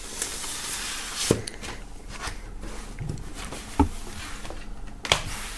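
Vinyl record in its paper inner sleeve sliding into a cardboard gatefold jacket, a papery hiss for about the first second. After that come three short knocks as the jacket is handled and laid on a wooden table.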